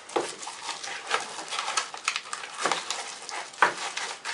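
Irregular rustling, clicking and knocking of packaging and plastic parts being handled while a cordless phone set is unpacked from its box, with one sharper knock near the end.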